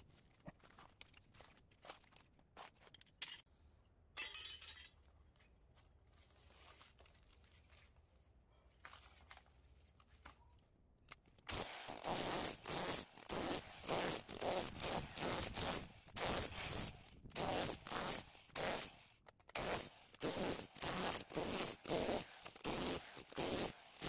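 Scattered light metallic clicks and scrapes as loose copper tubes are handled. About eleven seconds in, an electric hammer drill with a flat chisel starts hammering in rapid blows, with a high whine from its motor. It runs in repeated bursts with a short pause, chiselling the aluminium fins off an air-conditioner radiator's copper tubes.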